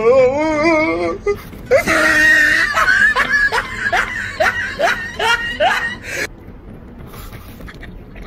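A person's high, wavering vocalising, then a run of short laughing sounds, each rising in pitch, about two a second, dying away after about six seconds.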